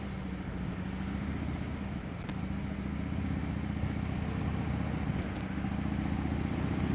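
2009 Harley-Davidson Dyna Low Rider's Twin Cam V-twin engine running steadily while cruising, getting slightly louder after a couple of seconds.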